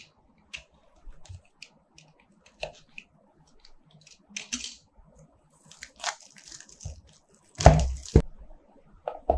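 Utility knife blade scratching through the shrink-wrap on a cardboard phone box, with small clicks and scrapes, then plastic wrapping crinkling and crumpling in the hands, loudest about eight seconds in.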